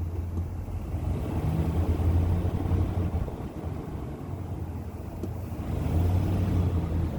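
2020 GMC Sierra Denali 2500 HD pickup on the move with a low, droning howl over road noise. The howl swells twice, about a second and a half in and again near the end. It is the brake howl that the owner has been recording.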